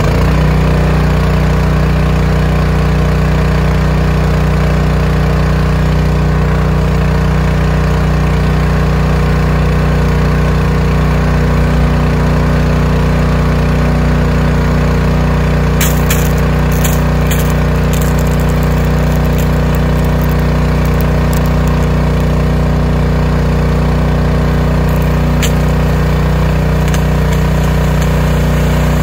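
Small engine of a Harbor Freight water pump running steadily at a constant speed, with a few light clicks a little past the middle.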